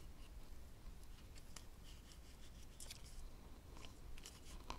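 Faint scraping and light clicks of a putty knife blade worked along the seam between a foam-core mold box wall and cured silicone, cutting the box free of the mold.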